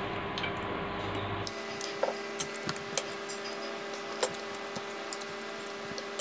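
Forks and spoons clicking and scraping against a plate of pasta in scattered light ticks, over a steady background hum.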